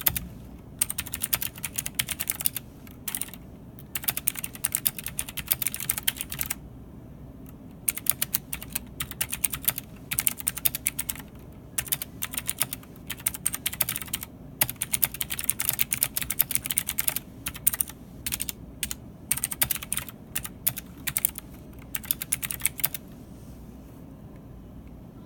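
Ajazz AK33 mechanical keyboard with Blue Zorro clicky switches and DSA keycaps being typed on in fast bursts of key clicks, with a few short pauses. The typing stops near the end.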